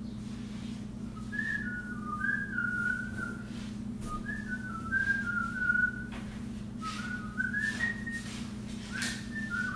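A person whistling a tune: short phrases of quick notes that step up and down, with brief pauses between phrases.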